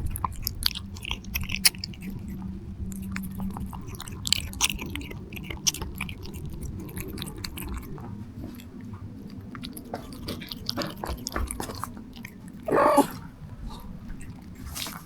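A cat chewing and biting, a steady run of small sharp clicks. About three-quarters of the way through comes one short wavering pitched cry, the loudest sound.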